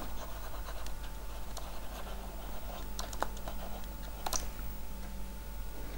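Faint taps and scratches of a stylus writing on a tablet, with a few sharp clicks, over a steady low hum.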